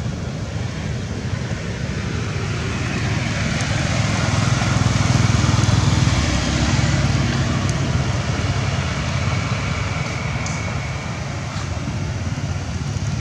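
Motor traffic: a vehicle's engine rumble that swells to its loudest about halfway through and then fades off.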